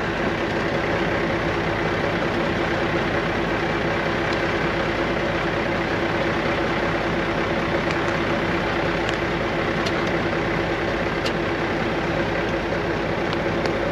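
Heavy diesel engine idling steadily at close range, with a few faint clicks in the second half.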